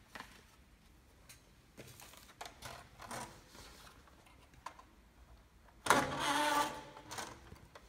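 Plastic toy Land Rover Defender handled on a glass table, with faint clicks and rustles. About six seconds in, its rear door is swung open with a louder plastic rasp lasting under a second.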